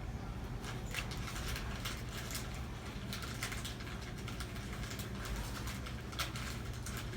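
Quick, irregular light clicks and taps from a young African lovebird being hand-fed, its beak working at the feeding utensil, over a low steady hum.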